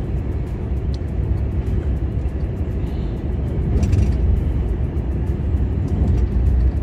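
Heavy truck driving at highway speed: a steady low engine and road rumble, with a brief hiss about four seconds in.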